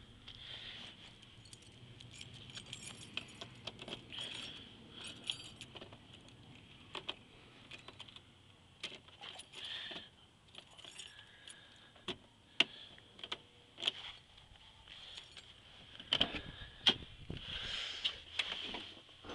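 Light jingling and scattered sharp clicks of handling and walking, with the loudest clicks near the end as the pickup's door is opened.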